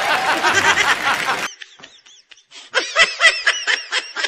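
People laughing. About a second and a half in, the sound drops out briefly. Then a rapid run of short, repeated laughs follows.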